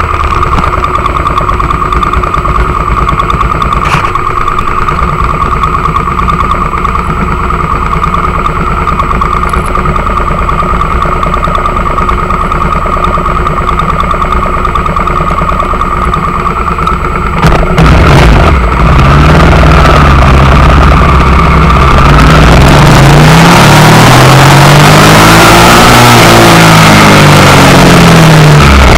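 2000 Suzuki SV650's 645 cc V-twin engine idling steadily. About seventeen seconds in it revs and the bike pulls away, the engine pitch climbing and dropping several times as it shifts up through the gears, with wind rushing over the handlebar-mounted microphone.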